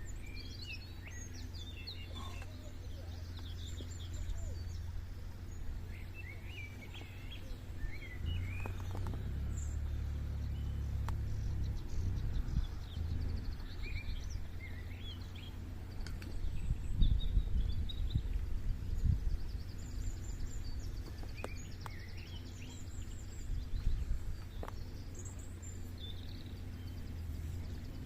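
Several small birds singing and chirping on and off, over a steady low rumble of wind on the microphone. A few louder knocks come near the middle and again later.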